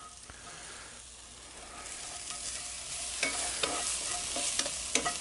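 Onions, ham chunks and cracked black pepper sizzling in hot oil in a cast-iron Dutch oven, the sizzle growing louder about two seconds in, as a wooden spatula stirs and scrapes against the pot with several short knocks.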